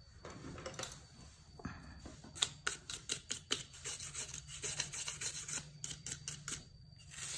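Bristle brush scrubbing an inverter's printed circuit board in quick, irregular back-and-forth strokes. The strokes become distinct about two seconds in and pause shortly before the end.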